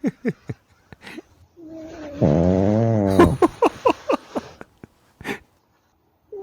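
Pug snoring in its sleep: a long, wavering snore about two seconds in, followed by a quick run of short falling squeaky snorts. A few of the same squeaks come at the start, and the sound stops briefly near the end.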